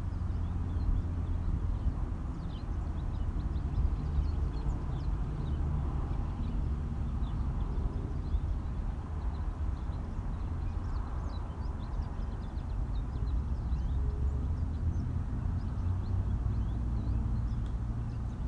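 Outdoor ambience: a steady low rumble, like wind on the microphone, with many short, high bird chirps scattered throughout.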